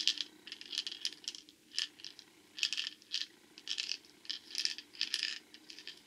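Metal ball bearings and glow-in-the-dark sequins rattling inside a dry UV-resin shaker maze as it is tilted in the hands: a string of short, irregular bursts of light clicking and rattling.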